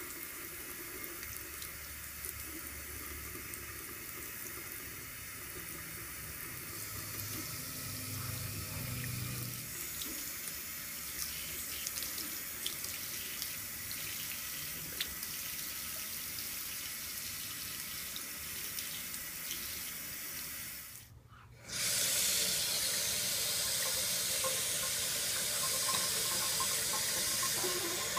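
Bathroom faucet running a thin stream of water into a porcelain sink, spattering over a baby's hands, with faint small ticks. After a brief gap about three-quarters of the way in, the running water is louder.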